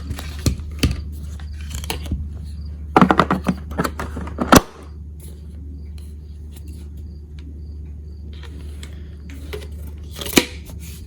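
Plastic vacuum attachment tools being fitted back onto the upright's onboard tool holders: a scatter of clicks and knocks, with a busy cluster ending in a sharp snap about four and a half seconds in. A steady low hum runs underneath.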